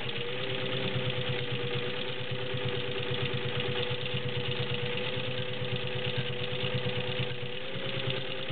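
Singer 15-91 sewing machine's direct-drive potted motor running steadily while it stitches through five layers of denim, a steady motor hum over a rapid, even needle rhythm.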